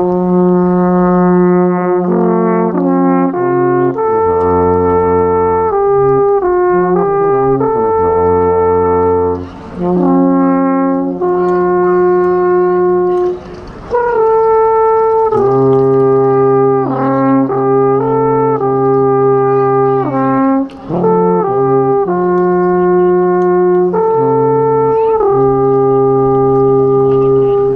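Alphorn playing a slow melody of long held notes, with short breaks between phrases about ten, fourteen and twenty-one seconds in.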